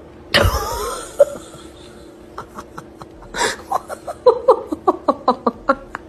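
A loud sudden cry with a falling pitch about half a second in. From about three and a half seconds in, a person laughs hard in quick bursts, about five a second.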